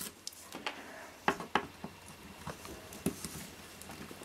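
Scattered light clicks and taps of a screwdriver and small metal parts being handled while screws are undone on a piece of electronic equipment, the two sharpest clicks about a second and a half in.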